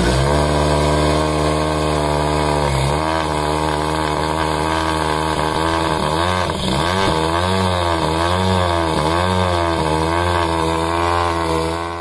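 An engine running at a steady pitch, then wavering up and down in a quick series of swells from about six seconds in, before dropping away at the end.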